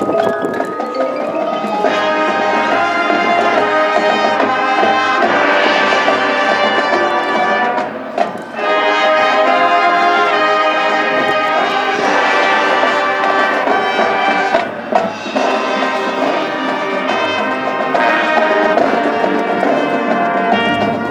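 High school marching band playing: full brass with percussion, loud and sustained, with a brief drop in loudness about eight seconds in.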